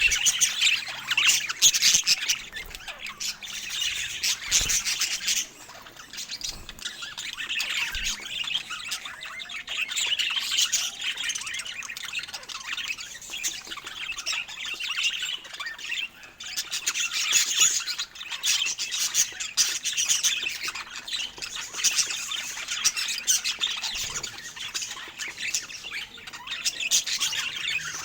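Budgerigars chattering, chirping and squawking in a dense, continuous warble that swells and eases in turn.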